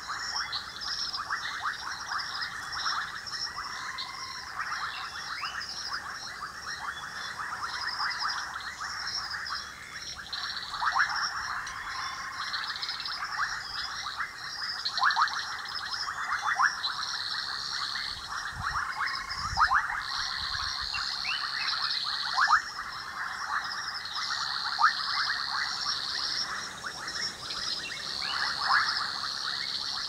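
Dense night chorus of frogs calling at a pan: many overlapping short clicking calls, with a higher pulsing chorus above them.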